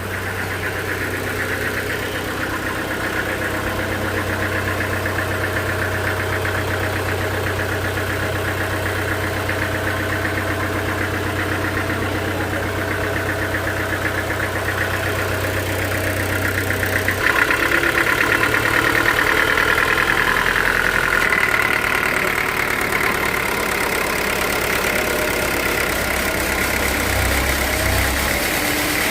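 Sawmill machinery running steadily with a low hum. About 17 seconds in, the sound changes abruptly and turns louder and higher.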